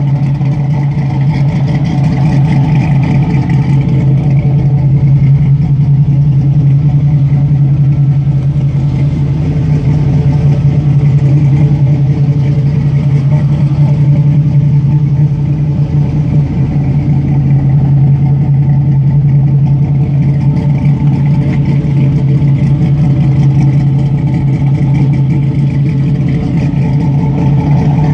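Chevrolet Camaro Z28's V8 engine idling steadily and loudly.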